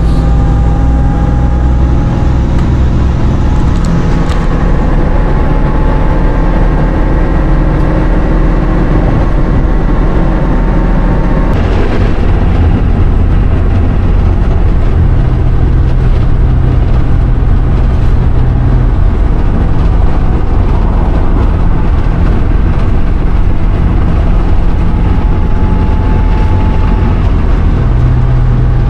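Class A motorhome cruising at freeway speed, heard from inside the cab: a steady, loud low engine and road rumble with a faint whine over it. The rumble changes character a little under halfway through.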